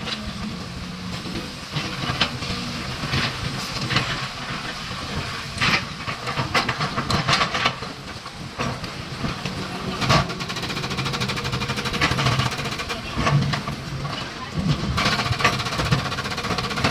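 Hydraulic crawler excavators working: diesel engines running under load with a steady hiss, and irregular sharp clanks and knocks of steel buckets and tracks against rock.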